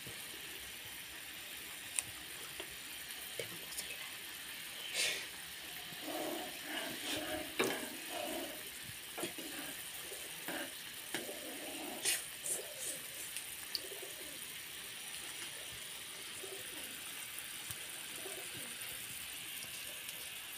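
Steady hiss of food bubbling in a small pan on a gas burner. A metal spoon clicks and scrapes against the pan a few times while it is stirred. Low cooing calls from a pigeon or dove come through around the middle.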